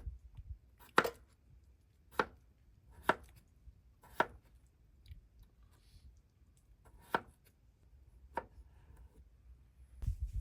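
Sharp chopping strikes, about one a second: four in a row, a pause of about three seconds, then two more.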